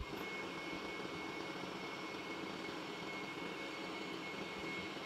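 Hot air gun blowing steadily with a thin high whine, switching on abruptly at the start, as it heats a wireless earbud's shell so the shell can be opened.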